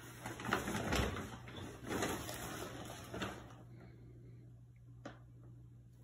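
Paper bag rustling and crinkling in several bursts as a cat shifts about inside it, quieter after about three and a half seconds, with one sharp click near the end.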